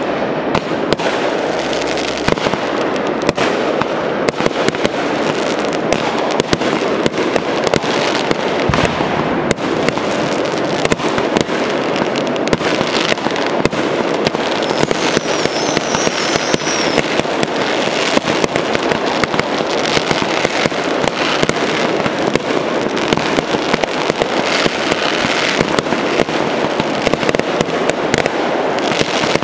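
Fireworks display: aerial shells bursting, many bangs and pops in quick succession without a break over a dense steady noise.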